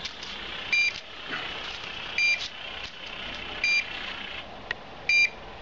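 Low-frequency pipeline-pig locator receiver beeping: four short, high beeps about one and a half seconds apart. They show that it is picking up the PNT transmitter's 22 Hz pulsing magnetic field through the steel walls of the pressurised hydro-test vessel, so the transmitter is working at 30 MPa.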